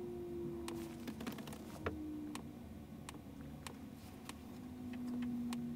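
Soft, evenly spaced ticking, about one tick every 0.6 seconds, over a faint low hum, with a quick flurry of clicks about a second in.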